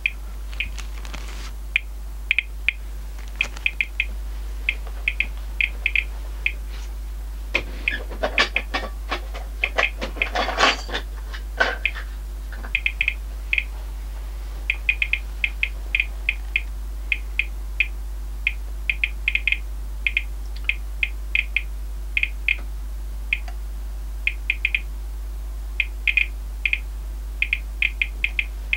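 RadEye G-10 gamma survey meter beeping its counts: short, high beeps at random spacing, one or two a second, as it measures a radioactive sample in a plastic bag and reads about 1 to 2 µSv/h, well above background. A plastic zip-lock bag crinkles for a few seconds near the middle as it is handled.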